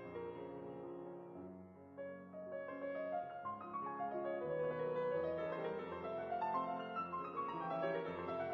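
Background piano music, a melody of sustained notes with a slower lower part.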